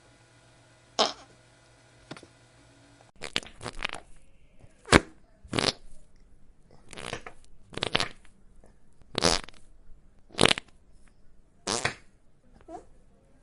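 Fart sound effects: one short blast about a second in, then after a brief gap a string of about a dozen short farts, one after another, each lasting well under a second.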